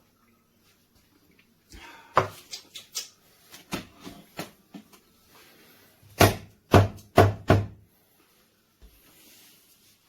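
Knocks and clunks of hard objects being handled and set down: a scattering of sharp knocks, then four loud knocks in quick succession past the middle.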